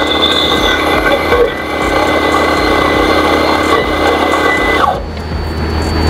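Gemilai electric coffee bean grinder running steadily with a high whine as it grinds coffee beans into a portafilter. It cuts off about five seconds in.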